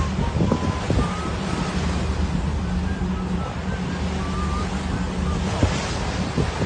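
Wind buffeting the microphone over open-sea wave noise, with a steady low hum underneath. A few faint, short, wavering whistle-like tones come and go.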